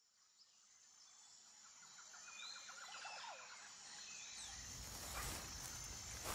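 Faint outdoor woodland ambience: about two and a half seconds in, a bird gives a quick trill and a few short chirps, then a soft wash of outdoor background noise slowly rises.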